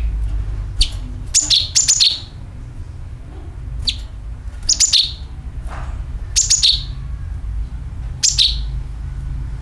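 Cucak kinoi calling: short, sharp, high chirps that sweep down in pitch, given singly and in quick pairs about eight times with short gaps, over a steady low hum.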